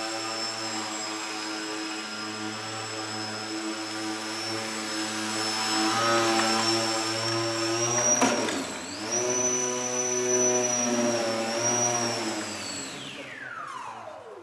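Electric motor and propeller of a small duck-shaped indoor RC flying model, whining steadily. About eight seconds in it hits the floor with a knock, the pitch dips and then picks up again as it keeps spinning. Near the end the motor is throttled off and its whine falls steadily to a stop.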